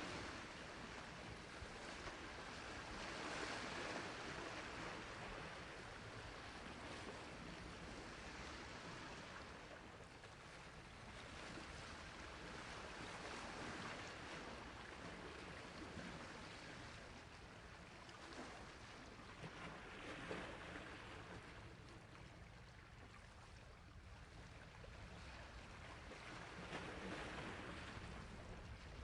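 Sea waves washing on a shore: a steady rush of surf that swells and eases every few seconds.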